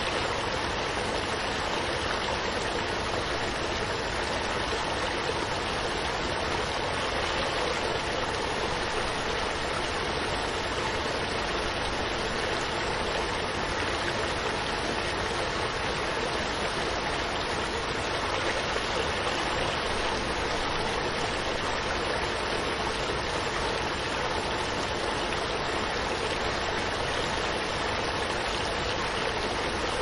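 Waterfall: a steady, even rush of falling water that never changes.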